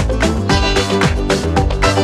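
Upbeat instrumental background music with a quick, steady percussive beat.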